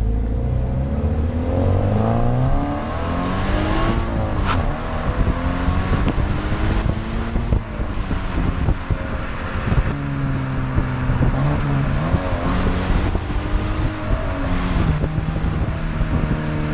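Exhaust of a 2017 Toyota GT86's 2.0-litre Subaru FA20 flat-four boxer engine heard at the tailpipe while driving, with wind and road noise. The revs climb over the first few seconds, drop about four seconds in, then hold fairly steady with small rises and falls.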